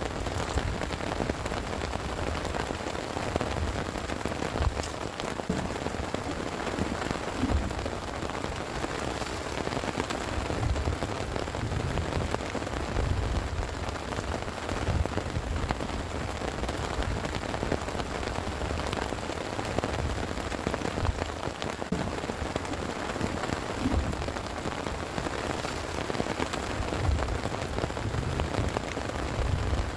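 Heavy rain falling steadily, with dense drop impacts, over an uneven low rumble.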